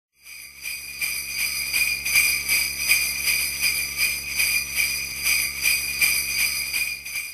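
Sleigh bells shaken in a steady rhythm, about three or four shakes a second, fading in at the start and stopping abruptly at the end.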